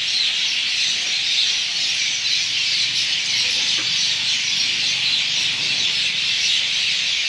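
A dense, unbroken chorus of many birds chirping and chattering together, typical of a large flock gathering at an evening roost.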